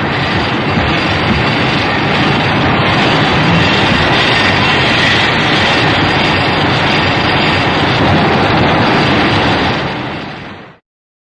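Film monster-movie sound effect: a loud, steady, dense rushing rumble with no clear pitch, which fades and stops shortly before the end.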